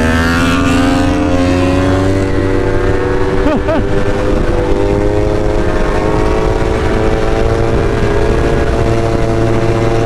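Motorcycle engine pulling steadily under acceleration, its pitch rising slowly, then falling away near the end.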